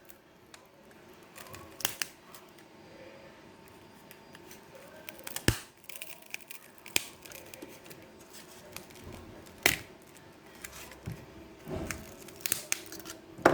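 Scattered sharp clicks and taps of small hand tools working on a phone's plastic and metal parts during disassembly, over a faint steady hum.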